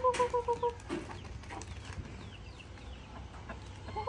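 A person's chicken-calling cry, a quick run of short identical notes at one pitch, about seven a second, that stops under a second in. After it, quieter yard sound with faint high chirps.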